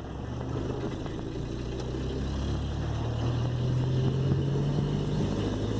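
VW Golf Mk3 1.8 single-point-injection engine heard from inside the cabin, pulling in second gear with its pitch and loudness climbing slowly. It runs smoothly with no misfire, the hesitation cured by a new idle air control actuator.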